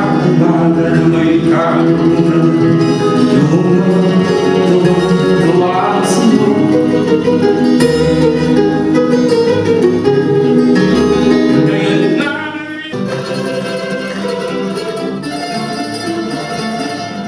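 Live rondalla music: bandurrias, guitars and a double bass playing a ballad, with singing over the first part. About 13 seconds in, the music breaks off into an instrumental passage of plucked strings.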